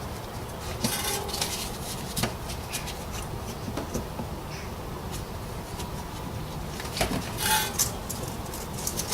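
Scattered light plastic clicks, knocks and rustles from a hand working in the wheel-arch access opening of a BMW E91, around the fog-light compartment and its cover.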